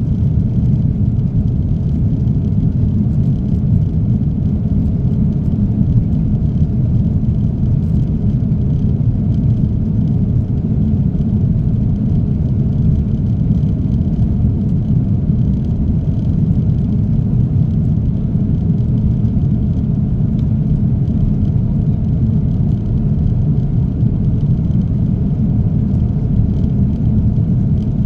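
Airliner cabin noise while taxiing: the jet engines at low thrust and the rolling of the aircraft make a steady low rumble, heard from inside the passenger cabin.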